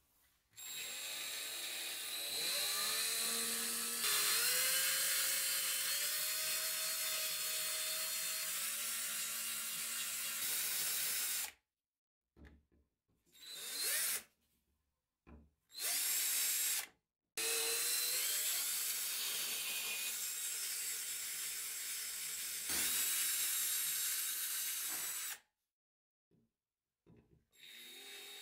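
Cordless drill with a twist bit drilling into an axe's handle at its rivets, running in two long stretches of several seconds with short bursts between them and near the end. The motor's pitch slides and shifts as the bit loads up.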